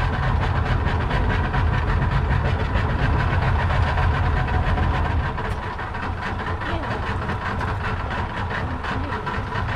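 Small fishing boat's engine running steadily under way, a loud drone with a fast, even pulse. The low rumble eases a little about halfway through.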